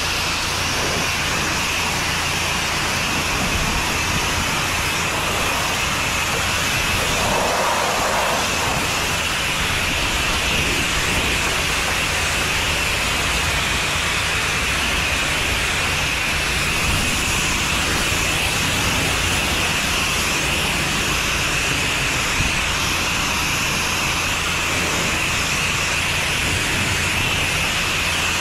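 Water jet from an 8 gpm pressure washer wand hissing steadily as it rinses siding and a wooden deck, with a steady low hum underneath.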